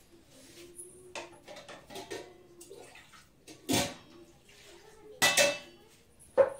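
Metal kitchen utensils and dishes clattering a few times: separate clinks and knocks, the loudest a little past halfway and another just before the end.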